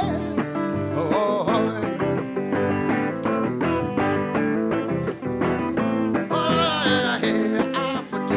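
Live band music with guitar to the fore and a steady beat, in a stretch with no sung words.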